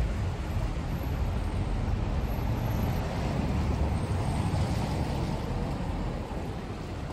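Rainy city street ambience: a steady low rumble and hiss of traffic on wet roads, swelling for a few seconds in the middle and easing near the end.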